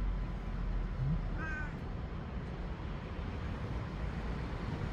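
A stray tabby cat gives one short, faint meow about a second and a half in, over a steady low hum of street noise.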